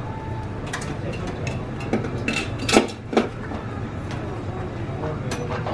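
Light metallic clicks and clinks of kitchen scissors and steel tongs as grilled squid is snipped into rings on a wire grill rack, with two sharper clinks about halfway through, over a steady low hum.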